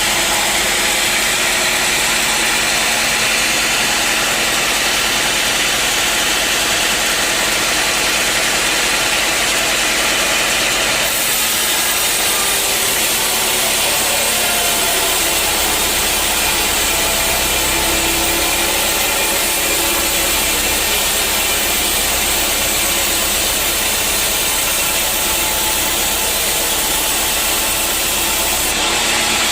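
Sawmill band saw and its drive motor running steadily while sawing wood. The sound changes abruptly about eleven seconds in and again near the end.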